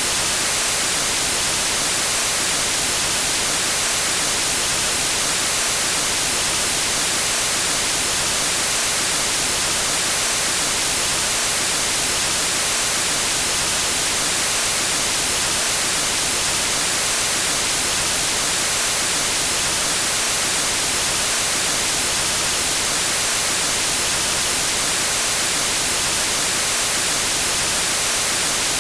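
Steady white noise like analogue TV static: an even, unbroken hiss, strongest in the high pitches.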